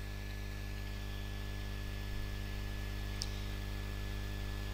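Steady electrical mains hum with a thin high whine, and one faint tick about three seconds in.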